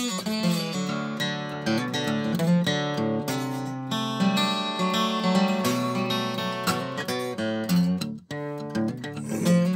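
Strummed acoustic guitar music, an instrumental passage of a song.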